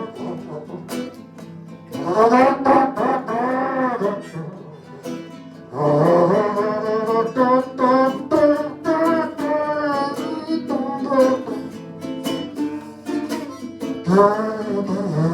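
Group of ukuleles strumming, with a group of voices singing in phrases over them.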